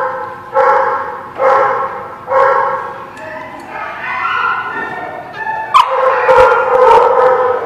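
Dogs barking and yipping: short calls about once a second early on, then a longer run of barking, with a sharp click about six seconds in.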